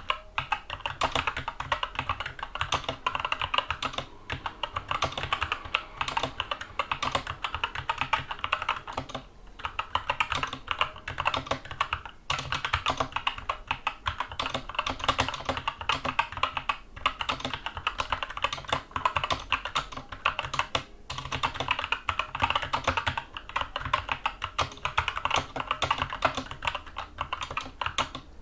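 Fast, continuous typing on a Skyloong SK64 mechanical keyboard with tactile Gateron Brown switches: a dense stream of key clicks and bottoming-out clacks, broken by brief pauses every few seconds.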